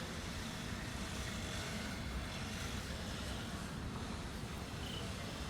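Motorised grass cutter running steadily, a continuous low engine drone.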